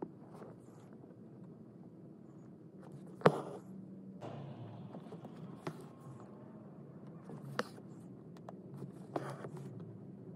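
Hand-embroidery handling sounds: floss being drawn through fabric stretched in a wooden hoop, with soft scratching and scattered sharp taps from fingers and needle on the hoop and cloth, the loudest tap about three seconds in. A faint low hum runs underneath.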